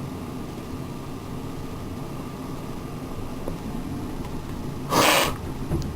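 Steady low background hum, with a brief loud rush of hissing noise about five seconds in.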